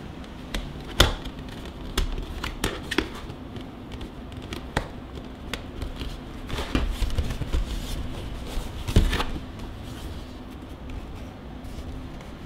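Stiff plastic panels of a Lightroom folding mini photo studio box being handled and unfolded by hand: scattered clicks and taps over light rustling, the sharpest about a second in and again near nine seconds.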